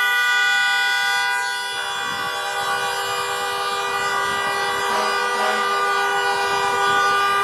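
Many car horns sounding at once in long, overlapping held blasts, a continuous chorus of steady tones. The mix of pitches shifts about two seconds in as horns join and drop out.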